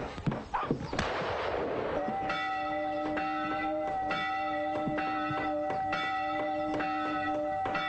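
Church bells ringing: several steady tones that ring on, renewed by a stroke about once a second. The ringing sets in about two seconds in, after a few knocks and a short rushing noise.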